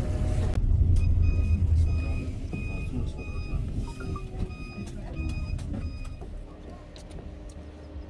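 Electronic warning beeper sounding about ten short, evenly spaced beeps over the low rumble of a running engine. The rumble fades after the first couple of seconds, and the beeping stops about six seconds in.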